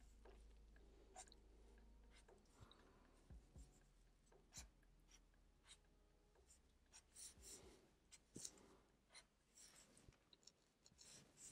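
Black marker pen drawing on paper: faint, short strokes of the felt tip across the paper, coming irregularly as small shapes are inked.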